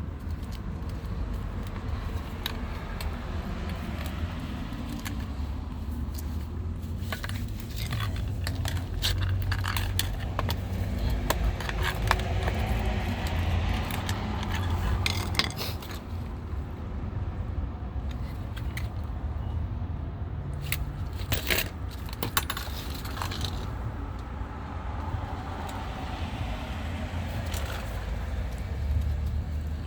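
Hand tools and small metal parts clinking and scraping against a car door's lock latch and its rod while the latch is worked loose. There are scattered sharp clicks throughout, over a steady low rumble.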